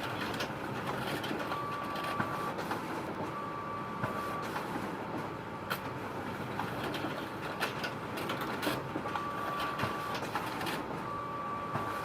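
Photocopier running: a steady mechanical whir with frequent small clicks, and a brief steady high tone of about a second that comes four times.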